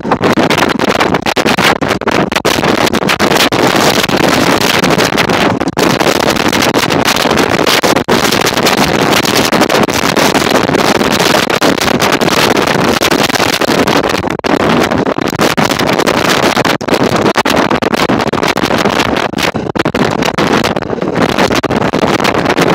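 1934 English Electric Blackpool boat tram running along the street, a steady loud rolling noise with wind buffeting the microphone on the open car.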